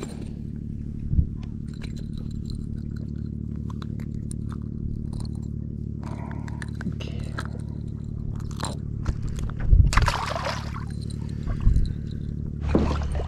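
Small boat's outboard motor idling steadily, with clicks and scrapes of a small coalfish being unhooked by hand and a short splash about ten seconds in as it is dropped back into the water.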